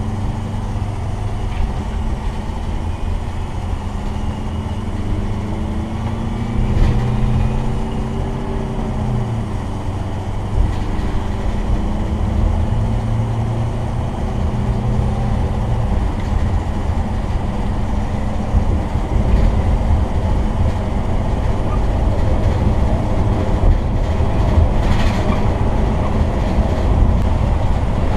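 Inside the cab of a 1968 Silver Eagle bus conversion on the move: the diesel engine's steady drone with road noise and body rattles. The engine note shifts in pitch for a few seconds about a third of the way in, and a few short knocks stand out.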